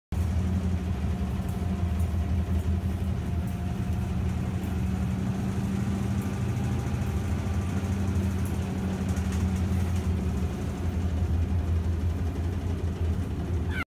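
Tabby kitten purring, a steady low rumble close to the microphone, with a brief rising cry right at the end.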